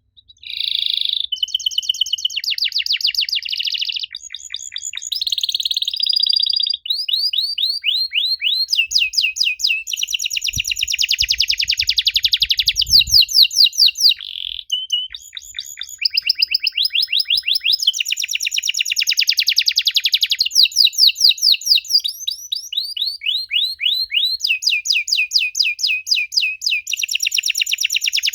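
Domestic canary singing: long runs of fast trills and rapidly repeated high whistled notes, the song shifting from one trill type to the next with short breaks between phrases.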